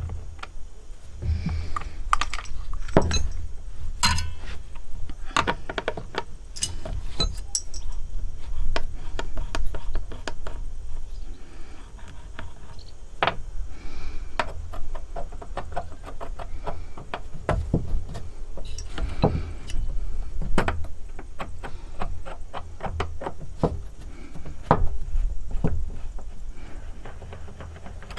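Hand tools and small metal parts clicking, tapping and knocking irregularly against a Stihl 028 chainsaw and the work table while it is being taken apart: screwdriver work on its screws and covers, with light metallic clinks.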